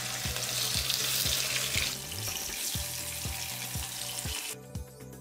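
Hilsa fish pieces sizzling as they shallow-fry in hot oil in a pan, being turned over with a spatula. The sizzle cuts off about four and a half seconds in. Background music with a steady beat plays throughout.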